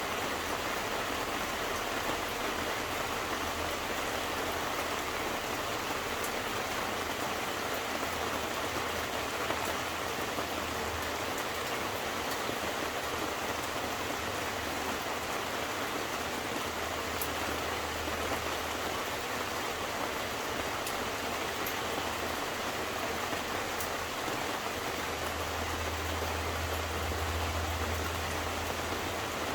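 Steady rain falling and pattering on surfaces, an even hiss with faint scattered drips. A low rumble comes and goes underneath and is strongest near the end.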